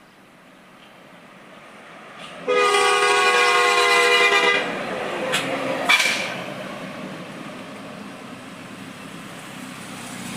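Tour bus 'telolet' multi-tone air horn sounding a loud chord of several notes together for about two seconds. Two short sharp noises follow, then the running noise of the bus going by.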